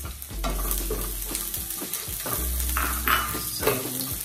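Chopped garlic sizzling in hot olive oil in a nonstick frying pan while a wooden spatula stirs and scrapes it around the pan, with the louder strokes about three seconds in.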